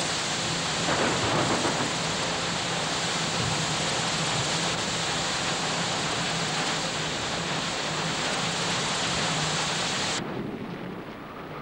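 A loud, steady rushing noise that starts abruptly, then drops sharply to a quieter, duller rushing about ten seconds in.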